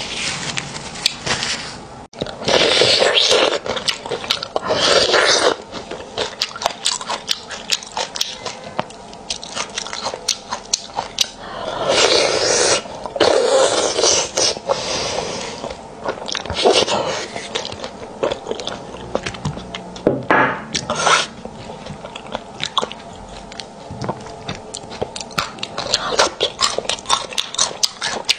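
Close-miked eating of braised beef bone marrow: several loud sucking slurps of about a second each, between wet chewing and lip smacks.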